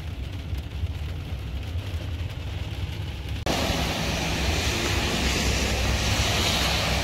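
A steady low rumble, then a little over three seconds in an abrupt cut to a louder, steady hiss of rain falling outdoors, with a low rumble underneath.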